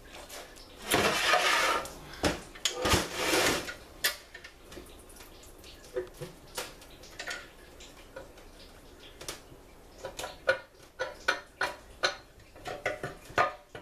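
Metal parts clinking and scraping against the aluminium case of a Ford C6 automatic transmission as it is stripped by hand: two longer noisy stretches of about a second each in the first four seconds, then a run of sharp clinks and taps.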